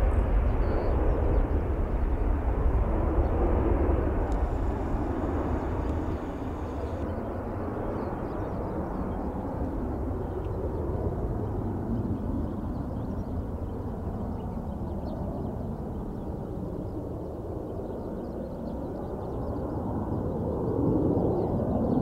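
Boeing 737-800's CFM56 jet engines: a broad, noisy rumble, strongest for the first few seconds, easing off, then swelling again near the end.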